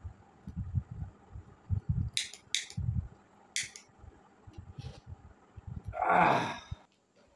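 A sheet of paper being folded and torn by hand at a table: soft knocks against the tabletop and a few short, crisp rips and crinkles. About six seconds in comes a louder rush of noise lasting under a second.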